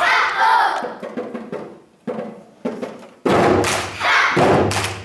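A group of children shouting out together in unison while slapping djembe drums. A shout comes right at the start, a few lighter drum hits follow, then a longer stretch of group shouting and drum strikes fills the last two seconds.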